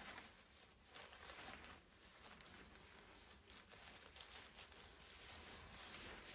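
Near silence, with a few faint soft rustles.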